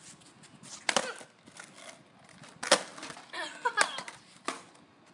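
Wooden skateboard deck and wheels clacking against concrete during a trick attempt: about four sharp knocks, the loudest a little under three seconds in.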